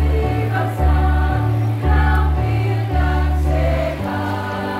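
Women's choir singing over an electronic keyboard accompaniment, with a low bass note that changes about once a second.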